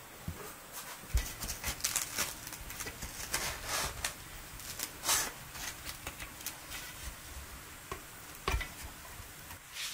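Light clicks, taps and rustles of food and dishes being handled on a table as a tray of grilled corn is moved and radish slices are laid on a vegetable platter, with a dull thump about a second in and another near the end.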